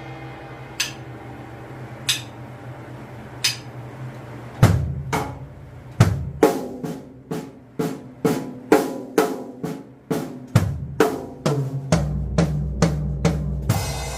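Drum kit: three sparse sharp hits, then from about four and a half seconds a gospel-chops fill of snare, tom and bass-drum strokes built on six-stroke rolls, growing denser toward the end. Faint backing music plays underneath.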